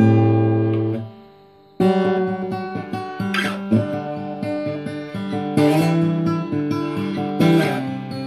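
Acoustic guitar in DADGAD tuning playing a tune. A held chord stops about a second in, and after a short pause the picking starts again. Sharper strummed chords fall every two seconds or so.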